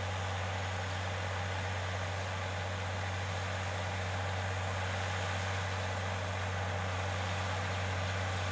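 Farm tractor's diesel engine running steadily under load while its rear rotary implement grinds through weeds and soil: a steady low drone with a noisy wash over it.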